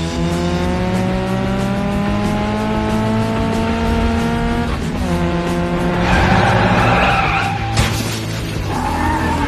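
Cartoon sports-car engine sound effect revving with a steadily rising pitch, dropping at a gear change about five seconds in and climbing again, then tyres screeching in a skid, with a sharp knock of a collision near the end. Background music plays underneath.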